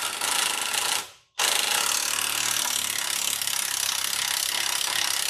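Cordless impact wrench hammering on a brake bolt at the front wheel hub of a 2013 Subaru WRX. It runs in two bursts: a short one that stops about a second in, then a longer steady run from about a second and a half in. The mechanic reckons the bolt was cross-threaded by whoever did the last brake job.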